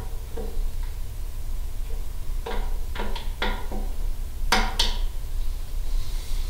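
Several light metallic clicks and taps as a small wrench tightens the GPS cable's SMA connector on the radio, over a steady low hum. A sharper pair of clicks comes about two-thirds of the way through.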